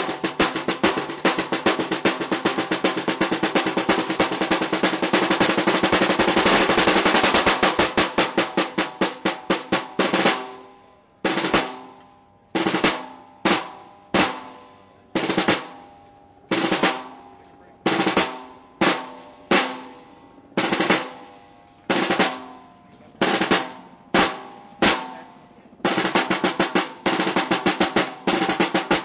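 Snare drum solo: fast, continuous rolls that swell over the first ten seconds or so, then single, spaced strikes, each ringing out briefly, then a dense roll again near the end.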